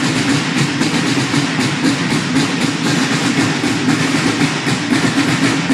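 Snare drums of a drum corps playing fast, even drumming, loud and dense. It stops abruptly right at the end.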